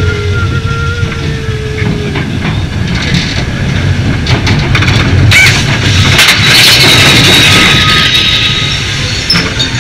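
Big Thunder Mountain Railroad mine train rolling along its track: a steady low rumble with scattered clacks and brief squeals near the start. A louder hiss rises about six seconds in and fades near the end.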